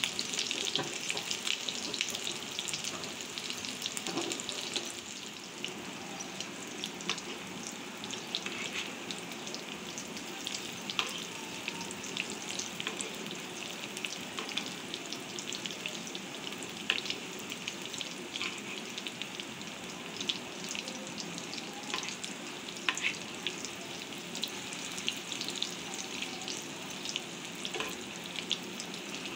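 Fish-roe fritters deep-frying in a pan of hot oil: a steady sizzle full of small crackles and pops, a little louder in the first few seconds. A metal spatula moves among them, turning them.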